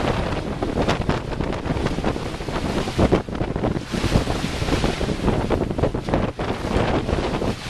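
Wind gusting across the microphone, uneven in loudness, over the rush of ocean water churning along a moving sailboat's hull.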